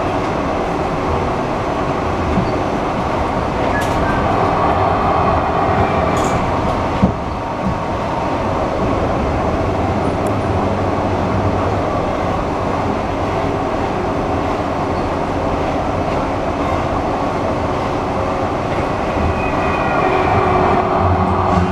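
Interior running noise of a 1977 Siemens-Duewag U2 light rail car travelling at speed: a steady rumble of wheels on rail, with one sharp knock about seven seconds in.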